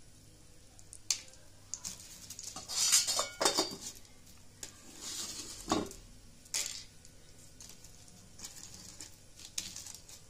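Steel spoon scraping and clinking on an iron tawa, stirring black myrobalans in ghee, in several short, separate bouts.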